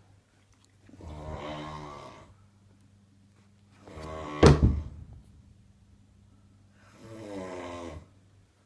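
A man snoring: three snores about three seconds apart, the middle one with a sudden loud burst at its peak.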